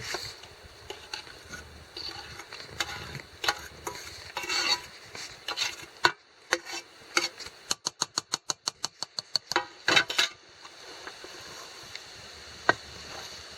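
A utensil stirring blackberry muffin batter in a mixing bowl, scraping and clinking against the bowl. About halfway through comes a quick, even run of taps, about eight a second, followed by two louder knocks, with a single sharp click near the end.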